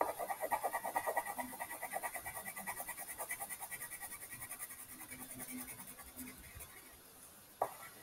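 Wax crayon scribbling on paper in quick back-and-forth colouring strokes, about five a second, fading out after about six seconds. A short knock follows near the end.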